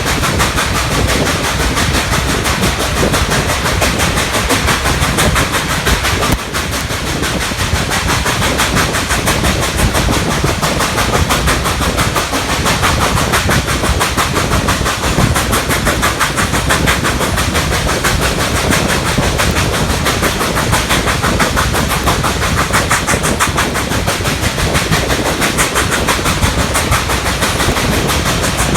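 Nickel Plate Road 765, a 2-8-4 Berkshire steam locomotive, working hard upgrade, heard from the car right behind it: a rapid, even stream of exhaust chuffs that is loud and steady, with a brief drop in level about six seconds in.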